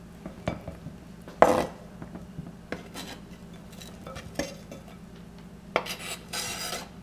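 Chef's knife scraping and tapping across a plastic cutting board, pushing shredded chicken off into a glass bowl. Scattered light clicks, a sharper knock about a second and a half in, and a longer scrape near the end.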